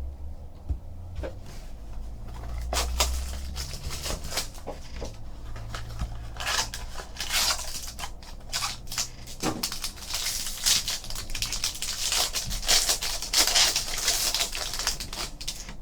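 Crinkling, tearing and rustling of a trading-card pack's wrapper and cards being handled, in a run of short irregular crackles that grows busier about halfway through.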